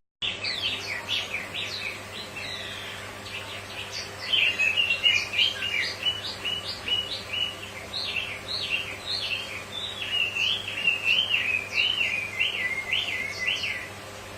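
A wambi songbird singing a long, fast run of varied chirps and trills that stops shortly before the end, over a faint steady hum.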